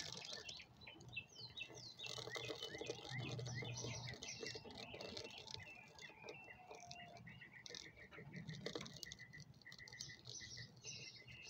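Faint pattering and light tapping of tiny cicadas fluttering and bumping inside a catch cup, with birds chirping in the background: short chirps and quick runs of repeated notes.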